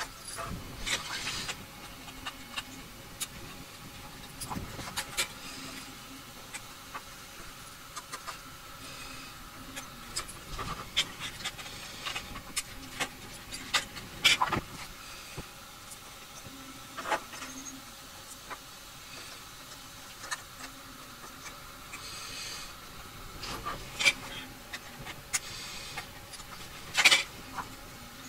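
Wire connectors being handled and pushed into the sockets of a 3D printer's replacement main board: irregular small plastic clicks and taps with light rustling of wires. The loudest clicks come about halfway through and about a second before the end.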